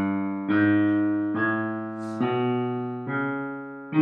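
Digital piano chords played with the left hand, a new chord struck about once a second, five in all, each ringing and fading before the next.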